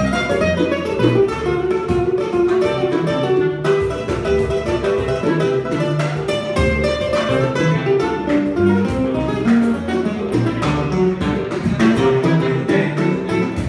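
A small live band playing: a clarinet melody over a picked electric guitar, upright bass and cajón, with a steady beat.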